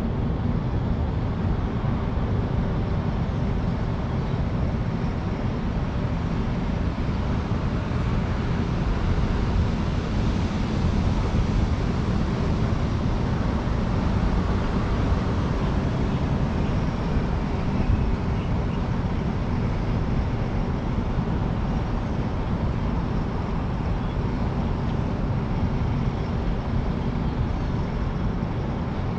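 Steady outdoor city ambience: a constant low traffic rumble with an even hiss above it, with no clear tone or distinct event.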